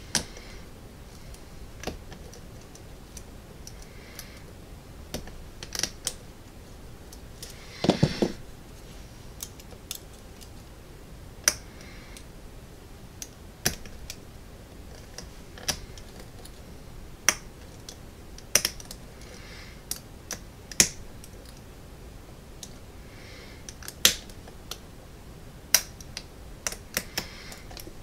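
Lock pick and tension wrench working in the pin-tumbler cylinder of a solid-brass American padlock: sharp, irregular metal clicks every second or so as the pins are probed and set. About eight seconds in there is a brief, louder rustle.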